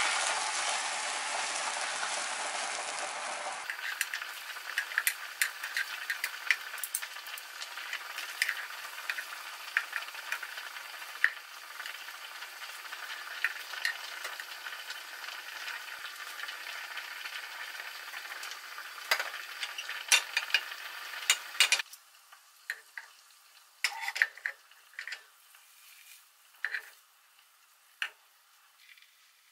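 Beaten egg sizzling in a rectangular tamagoyaki pan, with frequent light taps of wooden chopsticks and a spatula against the pan as the omelette is rolled. The sizzle drops away about three-quarters of the way through, leaving only scattered taps.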